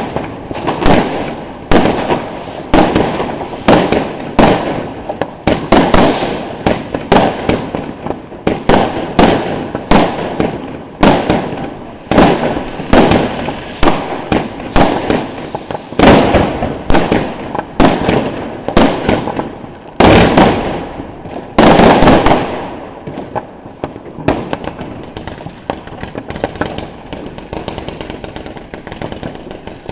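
Panda 'Falling Down' firework battery firing shot after shot, about one to two bangs a second, each followed by crackle. Around twenty seconds in come two louder, longer blasts, and then the volley gives way to quieter, rapid crackling.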